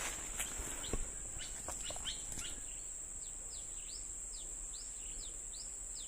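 Countryside ambience: a steady high-pitched insect drone, with a bird repeating short falling chirps about three times a second from about three seconds in. A few sharp clicks come in the first two seconds.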